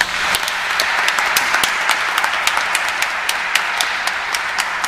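Congregation and clergy applauding in a large church, steady clapping that starts just after the speech ends and keeps on.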